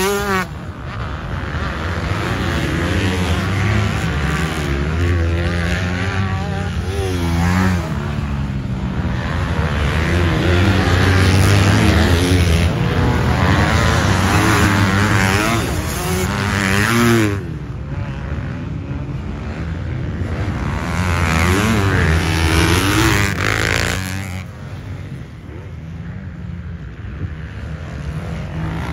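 Motocross dirt bike engines revving up and down as the bikes ride round the track, the pitch rising and falling over and over with the throttle. The sound changes abruptly twice, about two-thirds and four-fifths of the way through.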